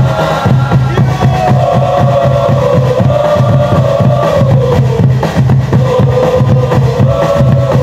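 Football supporters singing a chant together in one melody, carried over steady beating drums.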